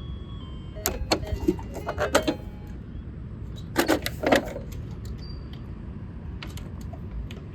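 Small plastic toy vehicles being handled and set down: scattered sharp clicks and knocks over a steady low rumble, with a cluster about a second in, another pair near four seconds, then only faint ticks.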